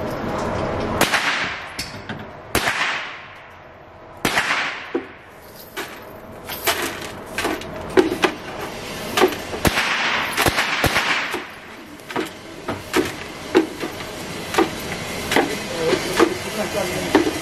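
A broom sweeping across a concrete floor in several swishes, then spent brass cartridge casings clinking and rattling in many sharp ticks as they are swept along and into a dustpan.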